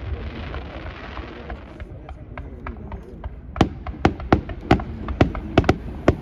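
Aerial fireworks display: a quieter lull, then from about three and a half seconds in a rapid run of sharp bangs from bursting shells.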